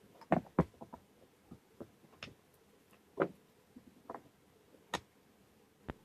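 Wooden blocks and a wooden board being set down and shifted on a wooden workbench: a scattered series of light knocks and clicks, wood on wood.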